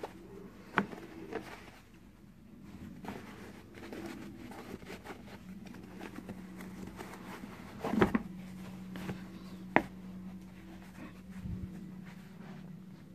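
Handling noise from a hand brushing over and pressing down on a stack of baseball caps: soft fabric rustling with a few sharp knocks, the loudest two late on. A steady low hum comes in about halfway through.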